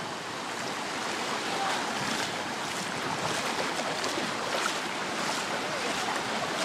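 Small ocean waves breaking and washing through the shallows, a steady rush of surf.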